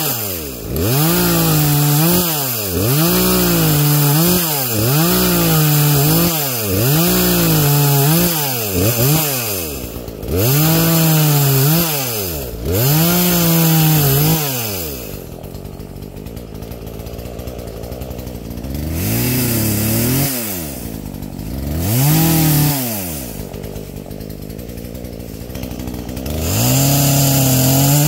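Poulan Pro two-stroke chainsaw with an 18-inch bar, revved in a quick series of throttle blips for about fifteen seconds. It then drops to idle, gets two more short blips, and is held high again near the end.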